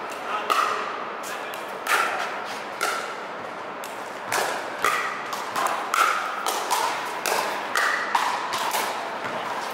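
A pickleball rally: a hard plastic pickleball popping off paddles about a dozen times, the hits coming quicker in the second half.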